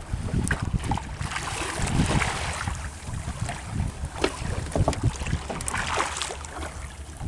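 Wind buffeting the microphone and waves splashing and slapping against the hull of a small wooden fishing boat at sea, with a steady low hum underneath and short sharp splashes throughout.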